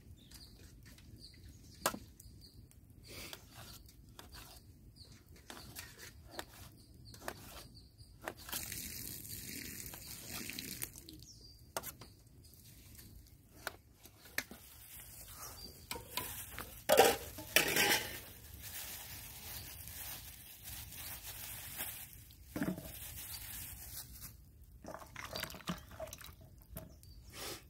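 Knife slicing tomatoes against a stainless steel tray: scattered sharp clicks and taps, with a few longer stretches of rustling noise in between.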